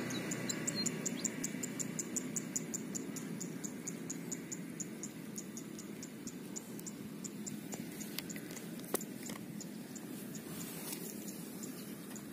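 Rapid, evenly spaced high-pitched insect ticking, about five a second at first and slowing a little, over a low steady background hum; a single sharp click about nine seconds in.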